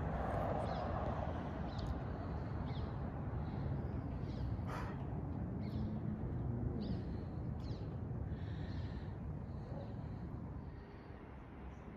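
Outdoor garden ambience: a steady low rumble of noise with scattered short bird chirps throughout and a single sharp click about five seconds in.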